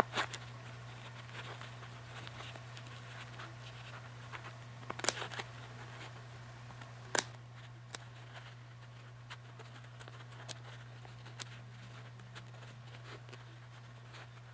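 Faint snips and clicks of scissors cutting through layered paper towel to take out a section for a filter, the two sharpest snips about five and seven seconds in, over a steady low hum.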